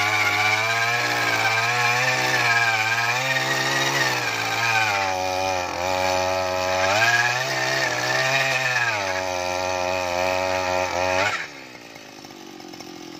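Zongshen G45 two-stroke earth auger engine running at high speed while drilling into soil, its pitch sagging twice as the auger bites in under load. The engine sound cuts off suddenly near the end.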